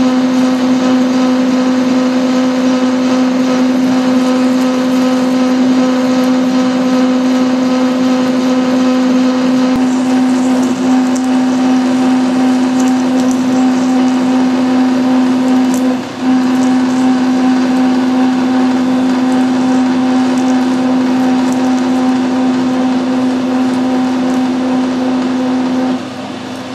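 Metal lathe parting off a metal pin, the parting tool and work giving a loud steady hum with overtones. It dips briefly about two-thirds of the way through and stops shortly before the end.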